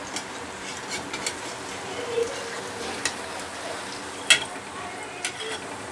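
Besan-coated batata vadas sizzling in hot oil in a steel kadhai, with a metal slotted spoon clinking against the pan several times as they are turned; the sharpest clink comes about four seconds in.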